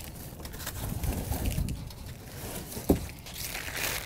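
Crinkling and rustling of packaging being handled, likely wrapping around the bicycle seat post as it is got ready to fit, with a single sharp knock about three seconds in.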